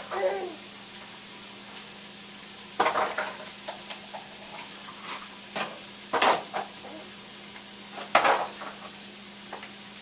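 Kitchen clatter: pots, pans or utensils knocking and clinking a few times, three louder knocks among them, over a steady hiss.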